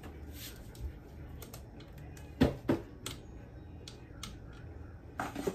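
Light clicks and taps of someone handling things in a cardboard box, with two sharp knocks close together about two and a half seconds in.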